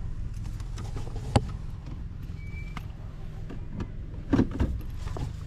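Inside a pickup truck's cabin: the truck rolling slowly with a steady low engine and road rumble. A single sharp click comes about a second and a half in, a brief faint high tone a second later, and a few soft knocks near the end.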